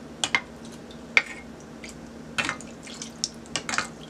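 Fry bake dough frying in a pot of hot oil, with scattered sharp pops and splashes as hot oil is spooned over its top.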